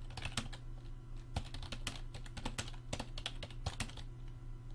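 Typing on a computer keyboard: a quick, irregular run of key clicks as a line of code is entered.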